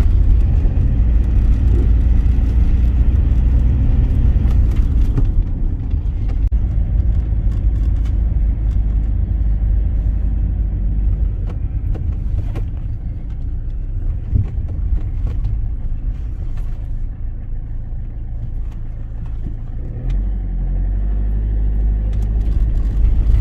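Vehicle on the move: a steady low engine and road rumble, shifting slightly about twenty seconds in.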